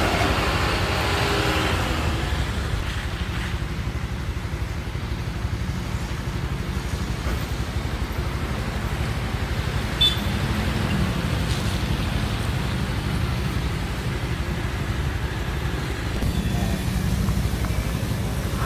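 Steady low rumble of a road vehicle on the move, with one short click about ten seconds in.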